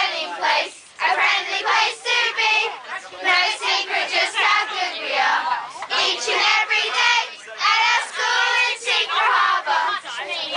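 A group of children's voices shouting and singing together, high-pitched and overlapping, in phrases a second or two long with short breaks between them.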